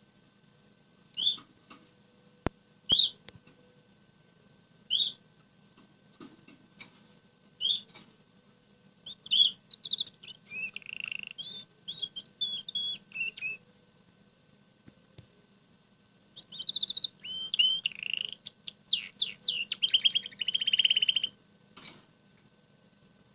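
Red canary calling with single chirps a couple of seconds apart, then singing two soft warbling song phrases, the second longer and ending in rapid trills.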